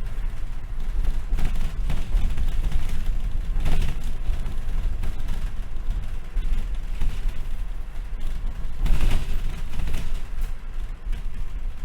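Inside a Collins NexBus small bus in motion: a steady low engine and road rumble, with several rattling jolts, the loudest about nine seconds in.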